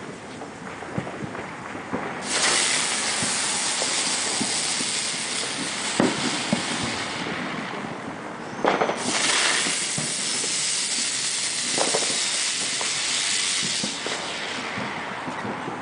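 Fireworks hissing in two long spells of about five seconds each, starting about two seconds in and again near nine seconds, with scattered crackles and pops between.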